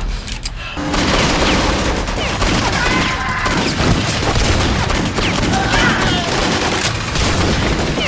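Rapid, continuous volleys of gunfire starting about a second in, with voices shouting over it.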